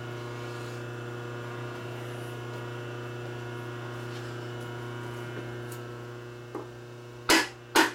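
A light tap, then two sharp hammer blows about half a second apart near the end, as a part is driven into a bore of a 1947 Harley-Davidson EL knucklehead's aluminium crankcase. The press fit is too tight and the part does not go in. A steady electrical hum runs underneath.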